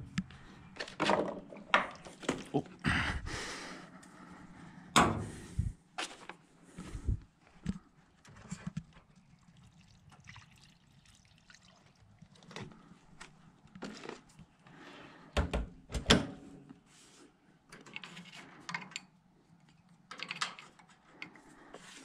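Handling noises at a front-loading washing machine: knocks and rustles as cloth rags are pushed into the drum, a splash of liquid poured from a plastic bottle, and the door shutting with two heavy thuds about two-thirds of the way through.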